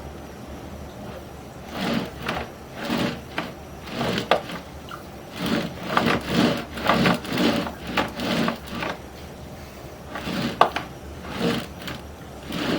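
Sewer inspection camera's push cable being pulled back out of the drain line in a run of short, uneven hand-over-hand strokes, the cable scraping and rubbing, starting about two seconds in and stopping near the end, over a low steady hum.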